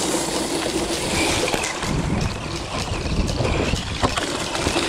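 PXtoys 9204E RC truck's 540 brushed electric motor and gear drive running as it drives over grass, a steady whine that wavers in pitch with the throttle.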